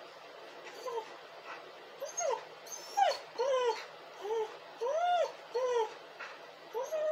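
A dog whining and crying: a run of short, high whines, each rising and then falling in pitch, starting about a second in and coming roughly every half second.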